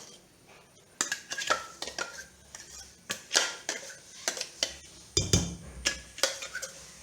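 A spoon clinking and scraping against kitchen utensils as thick ground batter is scooped from a mixer jar into a bowl: a string of sharp clinks and scrapes starting about a second in, with a heavier knock a little after five seconds.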